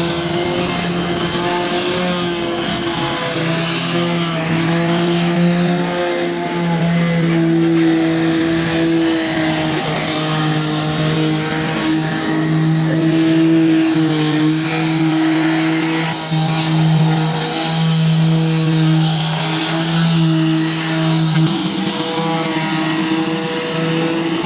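Electric wood router motor running at high speed with a steady whine, its pitch shifting slightly now and then as it cuts.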